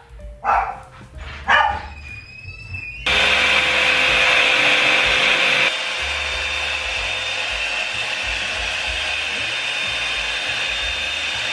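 Revlon One Step hair dryer brush switched on about three seconds in, blowing with a steady rush of air and a faint motor whine; about two and a half seconds later it drops a little quieter, as if turned down a setting.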